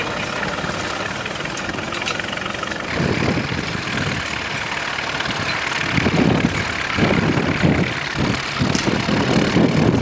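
Vintage tractor engine running steadily as it pulls a mounted plough through stubble. From about three seconds in, irregular low gusts of wind buffet the microphone on top of it.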